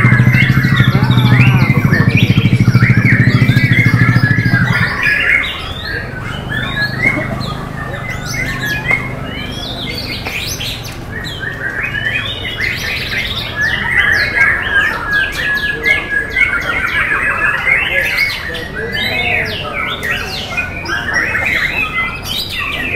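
White-rumped shamas (murai batu) singing: a dense, continuous run of whistles, trills and chattering phrases. A loud low hum runs under the song and stops about five seconds in.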